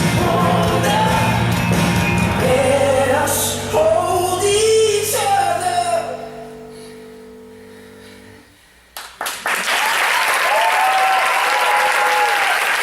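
A recorded pop song ends: a last sung line over band and choir-like backing, then held chords fading away. After a brief pause, an audience breaks into applause with a few cheers.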